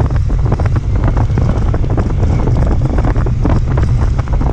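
Wind buffeting the microphone of a moving motorcycle: a steady low rumble with many short knocks and rattles through it.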